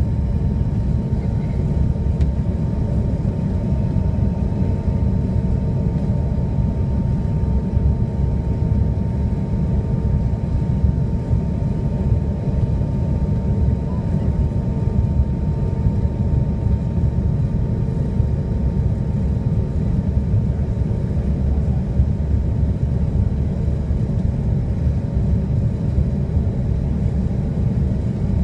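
Steady low rumble inside the cabin of a Canadair CRJ-200 regional jet, from airflow and its twin rear-mounted turbofans, with a faint steady whine on top.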